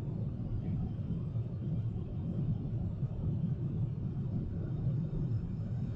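Steady low rumble of an airliner cabin in flight, from a Boeing 777-300ER's engines and airflow, holding an even level.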